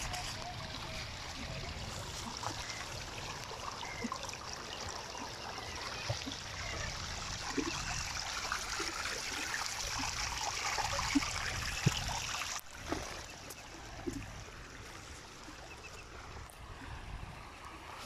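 Water trickling and running through gaps between the rocks of a stone causeway, building up over the first two-thirds and then dropping off suddenly.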